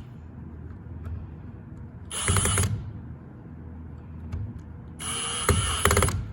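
Bolts on a fertilizer pumper head being tightened with a drill/driver in two short bursts, about two and five seconds in. The second burst ends in rapid ratcheting clicks as the bolt seats.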